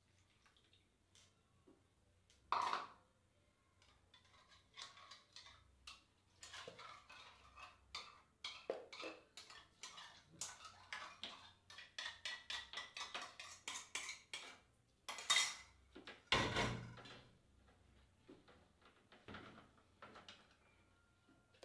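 Spoons and bowls clattering as batter is poured and mixed. A metal spoon clinks against a ceramic bowl, and a wooden spoon knocks and scrapes in a stainless steel bowl. There is a quick run of clicks around the middle and a few louder knocks.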